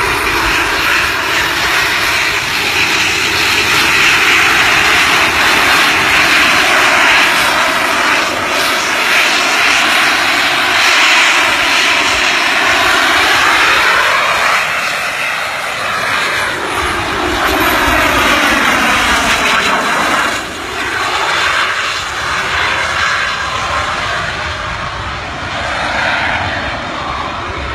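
Turbine engines of a jet-powered hoverboard running at high power, a loud continuous jet roar and whine as it lifts off and flies. The tone sweeps up and down around the middle as it passes and turns, and it grows a little fainter near the end as it flies away.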